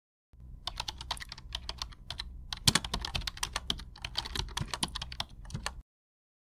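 Computer keyboard typing: a quick, irregular run of key clicks over a low hum, starting suddenly and cutting off abruptly near the end.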